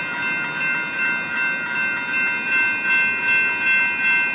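Railroad crossing electronic bells (GS Type 2 e-bells) ringing steadily, about two to three strokes a second, with a low rumble underneath.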